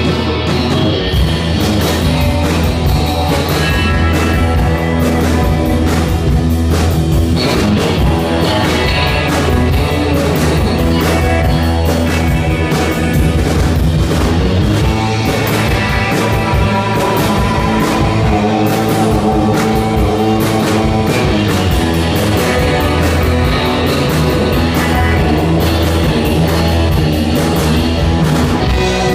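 Live rock band playing at full volume: electric guitars, bass and a drum kit driving a steady beat without a pause.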